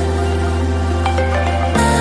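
Electronic background music with sustained synth chords over a deep bass note, changing chord about three-quarters of the way through.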